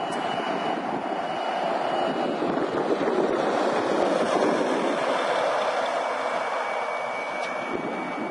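A road vehicle driving past fast: tyre and engine noise builds to a peak about four seconds in and then fades, with a high whine that drops in pitch as it goes by.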